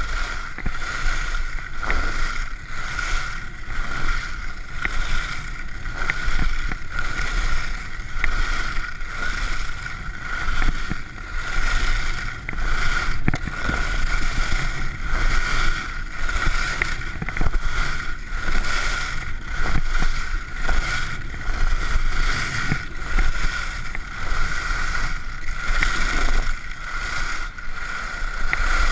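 Alpine skis carving down a groomed piste: the edges scrape and hiss on the snow, swelling with each turn roughly once a second, with a steady high tone running underneath.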